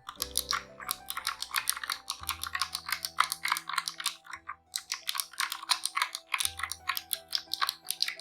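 Typing on a Razer Huntsman Mini 60% keyboard's clicky optical switches: a quick run of sharp key clicks, several a second, with a short pause a little after four seconds in.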